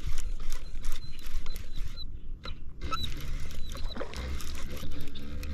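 Baitcasting reel being cranked with a fish on: rapid ticking and a thin high whine from the reel, over low rumble.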